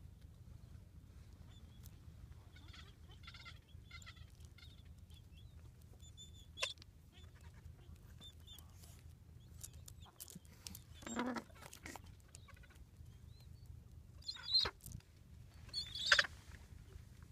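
Gentoo penguins and their chicks calling in a colony: a run of soft chirps, then a few scattered louder squawks, the loudest near the end. A faint steady low rumble runs underneath.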